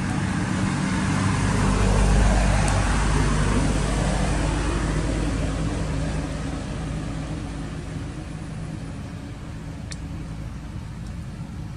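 A passing motor vehicle: a low engine rumble that grows louder over the first two seconds, then slowly fades away.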